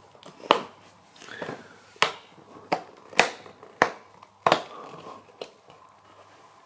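Fingers picking and pressing at a perforated cardboard advent-calendar door: a series of sharp clicks and taps with soft scraping between them as the door is worked open.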